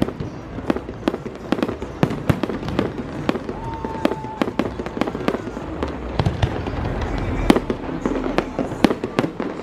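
Fireworks display going off: a rapid, irregular string of sharp bangs and cracks, several a second, with a brief steady whistle tone about four seconds in.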